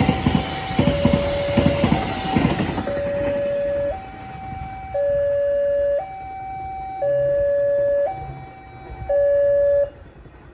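The last carriages of a passenger train clatter past for the first few seconds, overlaid by a level-crossing warning alarm: an electronic two-tone signal alternating between a lower and a higher tone about once a second. The alarm keeps going after the train has gone and cuts off near the end.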